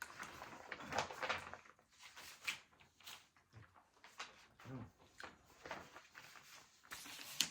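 Close-up eating sounds from a person eating tuna casserole: wet chewing and small irregular clicks and knocks, with a short closed-mouth hum a little under five seconds in.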